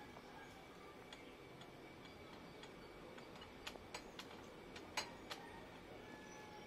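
Faint small handling clicks from fingers working a tube of high-temperature gasket sealer at a scooter's exhaust elbow: a few scattered ticks, the sharpest about five seconds in, against a quiet background.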